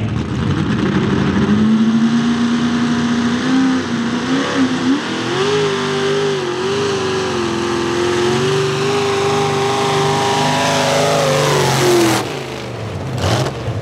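Modified pulling tractor's engine running at high revs under load during a pull. Its pitch holds steady, then steps up higher about five seconds in and stays there, before falling away as the engine backs off about twelve seconds in.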